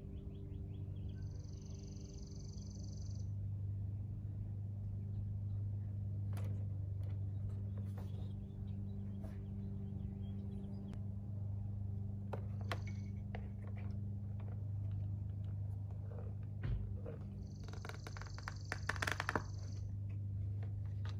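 Scattered light clicks and rattles of plastic washer hose and trim clips being handled at a car's cowl panel, over a steady low hum. A high-pitched buzz sounds twice, each time for about two seconds.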